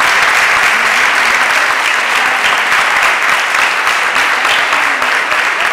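A theatre audience applauding steadily, many hands clapping together in a dense, continuous ovation.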